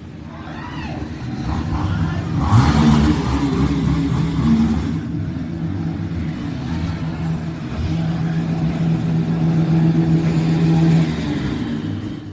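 Motorcycle engines running and revving, a steady low engine note that swells about two and a half seconds in and again near the end, then cuts off suddenly.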